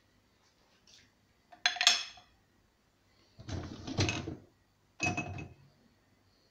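Dishes being loaded into a dishwasher's wire rack: three clattering bursts. The first and last ring like glass being set down, and the longer middle one is the rack rattling as it moves.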